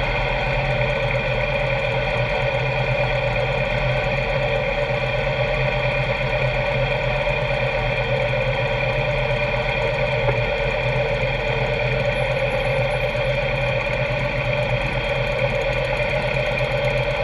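Steady drone of a motorcycle engine running at low speed in slow traffic, mixed with rock music with electric guitar.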